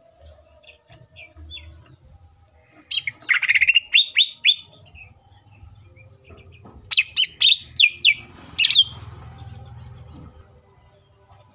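Caged green leafbird (cucak ijo) singing. A few soft notes come first. About three seconds in there is a loud run of quick, sharp, falling chirps, and a second run follows about seven seconds in.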